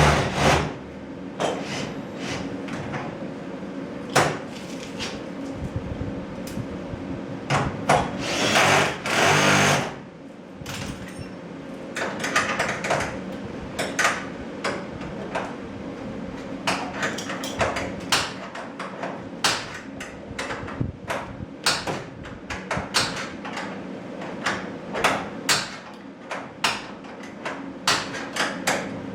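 Hand and power tool work on garage door hardware: irregular knocks and clicks of metal parts and tools, with a power driver running in short bursts near the start and about eight to ten seconds in, over a steady low hum.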